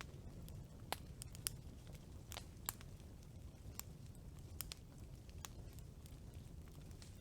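Wood campfire burning with a low steady rumble and sharp, irregular crackles and pops, about a dozen in a few seconds.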